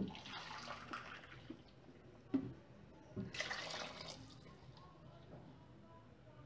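Already-boiled water poured from a jug into a pot of vegetable stew, splashing in two pours a few seconds apart, with a short knock between them.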